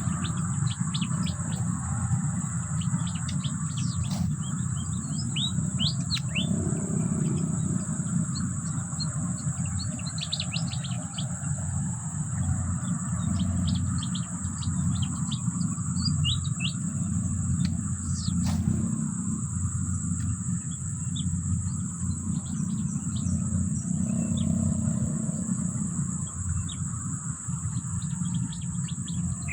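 Wild birds chirping, many short quick chirps scattered throughout, over a steady high-pitched drone and a constant low rumble.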